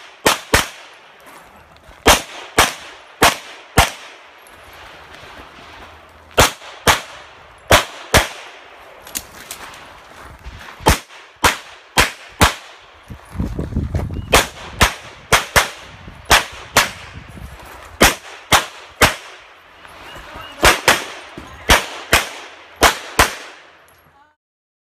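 A pistol fired in a run of sharp shots, mostly in quick pairs, with short pauses between groups as the shooter moves through a practical-shooting stage. The shooting stops abruptly near the end.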